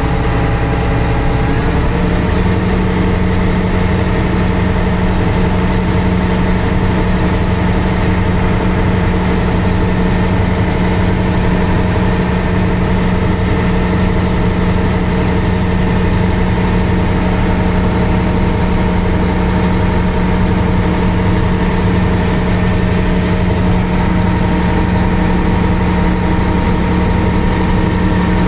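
Concrete pump truck's diesel engine running steadily with its revs raised to drive the hydraulics that unfold the boom; its note steps up about two seconds in and then holds.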